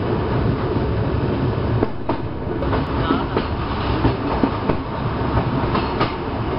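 Express train heard from inside an air-conditioned chair car while running: a steady low rumble with irregular clacks and knocks from the wheels passing over the track.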